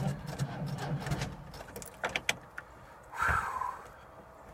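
A van's engine cranking over on the starter without firing, hard to start in the cold. The cranking stops about two seconds in, followed by a couple of clicks and a short rustle.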